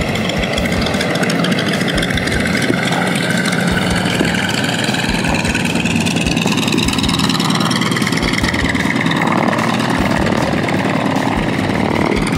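Radial engines of T-28 Trojan trainers running at taxi power as the aircraft roll past, a steady engine sound whose pitch slowly wavers up and down.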